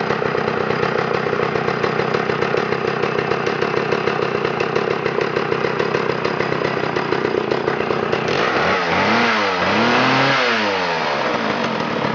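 Homelite 550 chainsaw's 84 cc two-stroke engine running steadily, then revved up and down twice near the end.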